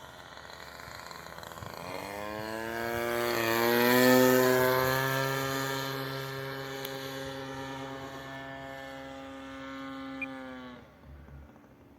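DLE 20cc single-cylinder two-stroke petrol engine of an RC model plane flying past. The buzzing pitch drops as the plane comes closest, about four seconds in, then holds steady and fades before stopping abruptly near the end.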